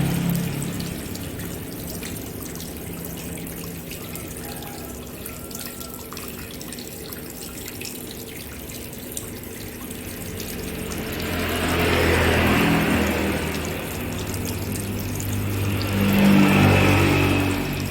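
Tap water running into a sink as hands are washed and rinsed, growing louder twice in the second half.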